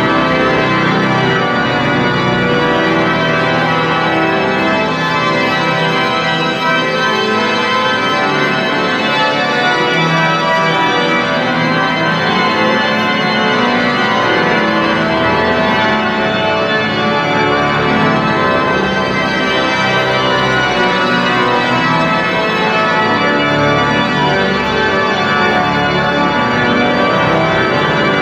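The great pipe organ of Notre-Dame de Paris playing a loud, dense passage of sustained chords without a break.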